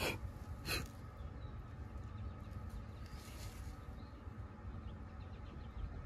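Handling noise from hand work on an air-conditioner line set: two sharp clicks less than a second apart, then a brief rustle about halfway through, over a steady low rumble.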